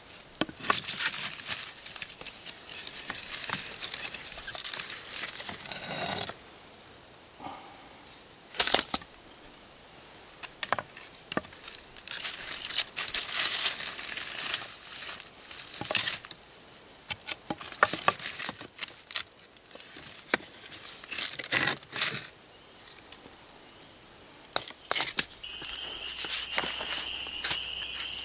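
Wooden sticks scraping and prodding among rocks and charcoal in an earth pit oven, with irregular bursts of crunching and scraping and a few sharp knocks. A steady high whine comes in near the end.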